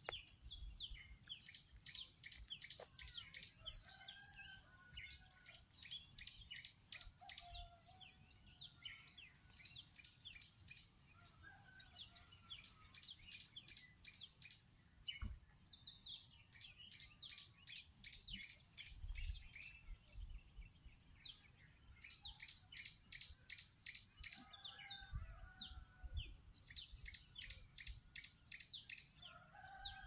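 Faint chorus of small birds chirping: rapid, high, repeated chirps throughout, with a few lower, warbling calls now and then.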